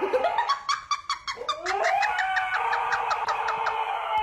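A pet's drawn-out vocal calls: a short wavering call, then a longer one held at a steady pitch.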